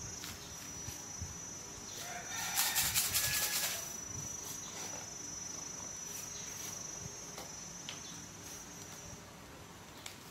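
A rooster crowing once in the background, about two and a half seconds in, lasting about a second. A thin, steady high-pitched whine runs beneath it and stops near nine seconds, with a few faint clicks as a small plastic salt jar is handled.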